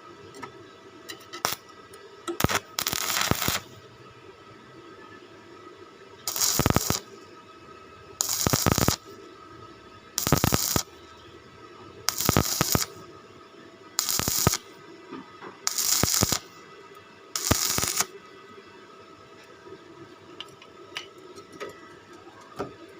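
Arc welding in short bursts, about seven in a row, each under a second and about two seconds apart, as in tack or stitch welding on steel square tubing, over a faint steady hum.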